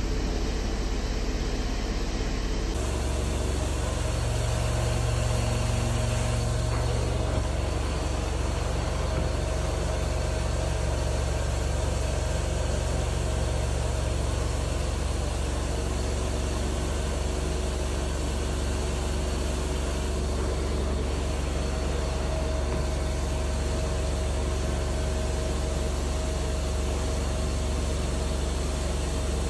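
Truckmount carpet-cleaning wand drawn across carpet, with a steady rush of hot-water extraction suction over a constant low hum from the truckmount machine.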